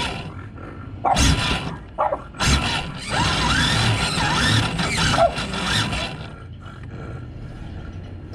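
A French bulldog barking, grunting and squealing as it goes after a Gen8 RC crawler, mixed with the crawler's running and jolting as it drives. Sharp bursts come about one and two and a half seconds in, then a longer busy stretch in the middle, and it is quieter near the end.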